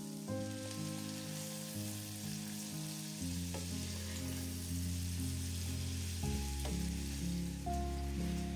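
Food sizzling as it fries in a pan, with a steady hiss, under background music of slow sustained chords.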